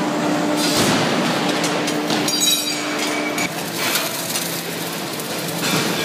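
Factory machine noise with a steady hum from a hydraulic press. About three and a half seconds in it changes to the noisier sound of an automatic torch welding the valve flange onto a steel gas cylinder, with scattered clicks.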